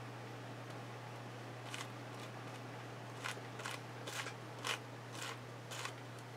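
Fingers rubbing paint across a paper journal page: a string of short swishing strokes, about two a second, over a steady low hum.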